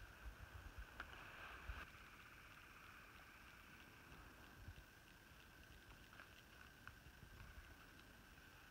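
Near silence: faint woods ambience, with a steady faint high hum, a low rumble and a few soft ticks.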